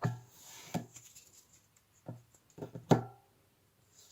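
Cards and packs being handled on a tabletop: four sharp taps and knocks, some with a brief ringing, the loudest near three seconds in, with a light sliding scrape of cardboard after the first.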